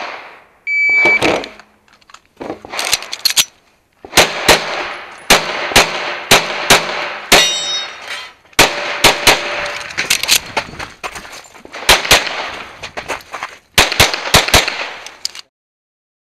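A shot-timer beep, then a Walther Q5 SF pistol firing a match stage string: many shots, often in quick pairs, with short pauses between target arrays, stopping shortly before the end.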